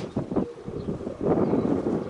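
Wind buffeting the microphone in gusts, with a brief lull and a few short knocks in the first second, then picking up strongly again.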